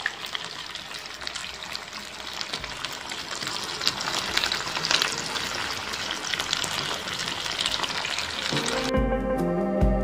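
Chicken pieces frying in black pepper sauce with onion and capsicum in a pan: a steady sizzle with crackles and spits that slowly grows louder. About nine seconds in, the sizzle gives way to music with deep bass beats.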